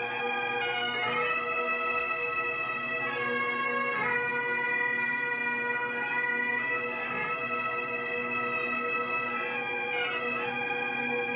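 Bagpipes playing a slow melody of long held notes over a steady drone.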